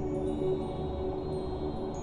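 Background music: calm held chords with high, bell-like notes over them.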